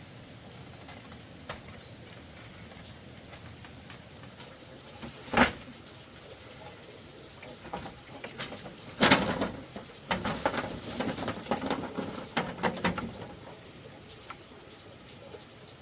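A single sharp knock about five seconds in, then a few seconds of clattering knocks and rustling, over a steady hiss like light rain.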